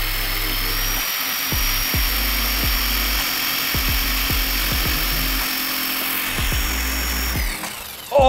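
Power drill-driver whining steadily as it drives a bone screw into bone without a pilot hole, friction scorching the bone. The whine rises in pitch about a second in and winds down near the end, over background music with a beat.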